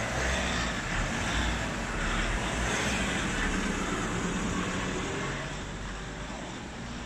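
A van driving slowly past close by: engine and tyre noise that is loudest for the first few seconds and fades after about five seconds as it moves away.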